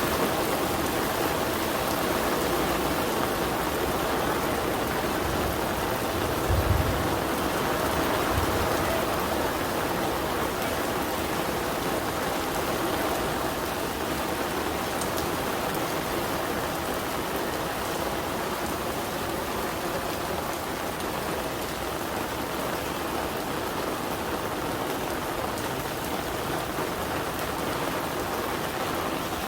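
Steady rain falling, with a brief low thump about seven seconds in and a fainter one shortly after.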